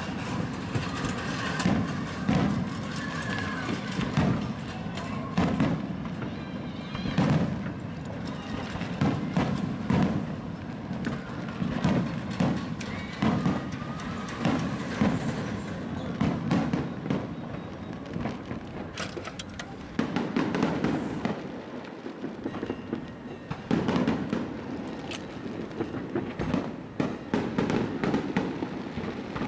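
Aerial fireworks bursting again and again in a large display: deep booms mixed with sharp cracks, with some background music and voices.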